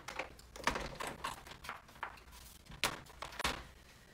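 Irregular light clicks, knocks and rustles of paper and craft tools being handled on a tabletop, about a dozen in all, the sharpest near three and three and a half seconds in.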